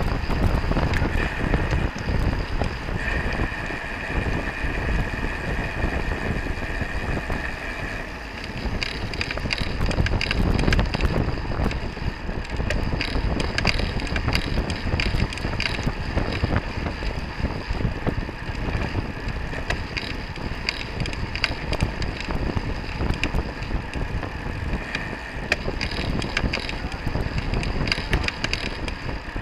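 Wind rushing over the microphone of a camera on a road bike riding in a racing pack, with mechanical clicking and rattling from the bicycle. A steady whir runs from about three to eight seconds in.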